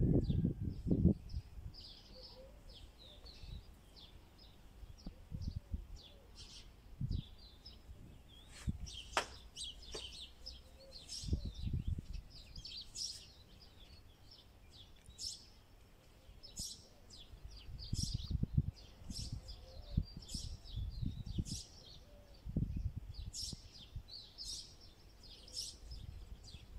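Small birds chirping again and again outdoors, with low gusts of wind rumbling on the microphone now and then.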